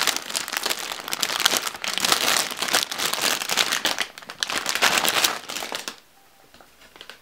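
Metallized anti-static bag crinkling and rustling as a motherboard is pulled out of it. The crinkling stops abruptly about six seconds in, leaving only a few faint taps.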